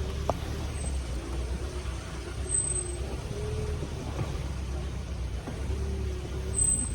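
A motor vehicle running on a rough road: a steady low engine and road rumble with a faint wavering hum above it.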